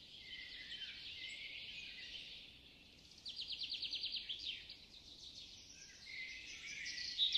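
Birds chirping and calling over a steady high hiss, with a fast trill about three seconds in and another starting near the end.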